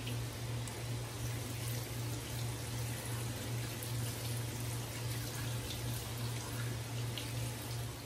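Tap water running into a stainless steel sink through a wire-mesh strainer of raw shrimp being rinsed, with a steady low hum underneath.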